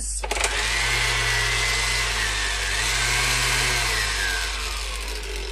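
Makita 18V cordless random orbital sander switched on and running free in the air, a steady motor whine; about four seconds in its pitch starts to fall as it winds down. It runs again now that a loose wire inside has been fixed.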